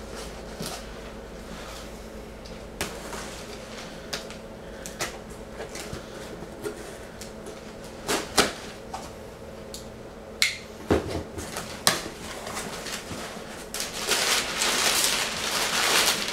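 Cardboard shipping box being opened and handled by hand: scattered taps and knocks, a few sharper clicks a little past halfway, then steady rustling of the packing material near the end.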